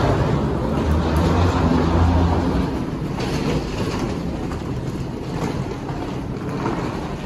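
Hard-shell suitcase wheels rolling over stone floor tiles, a steady rumble. A low escalator machine hum fades out after about two seconds.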